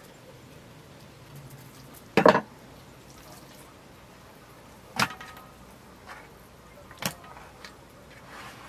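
Three sharp knocks and clatters of fish and kitchenware being handled on a wooden cutting board and a metal tray. The loudest is a short rattling cluster about two seconds in. The others come about three and five seconds later, and one leaves a brief metallic ring.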